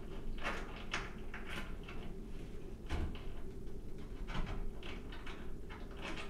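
Irregular small clicks and scrapes of a metal toggle bolt with spring-loaded butterfly wings being handled and fitted at a hole in drywall, over a steady low hum.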